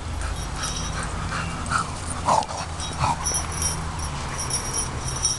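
Small bells on costume horn covers jingling in short high tinkles from about halfway through as the wearer crouches and moves her head, with a few short whimpers from a spaniel and a low steady rumble underneath.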